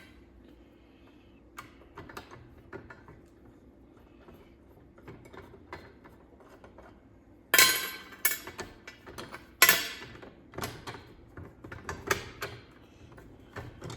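Metal damper parts clinking, scraping and rattling as they are worked by hand into their holes in the firebox door, with two louder clanks about halfway through and smaller clicks after.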